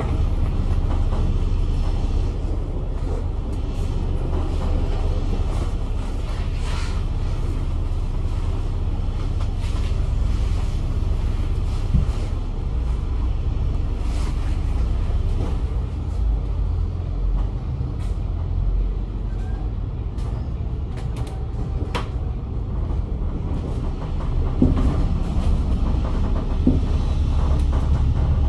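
Volvo B8L double-decker bus with a Volvo D8K-350 diesel engine heard from inside the cabin while driving: a steady low rumble of engine and road, with a few sharp clicks and rattles, one about twelve seconds in and one about twenty-two seconds in, and several more near the end.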